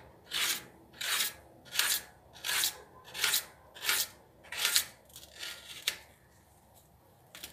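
Kitchen knife slicing a raw potato into fry strips on a steel tray: a run of about eight crisp slicing strokes, roughly one every two-thirds of a second, stopping about six seconds in.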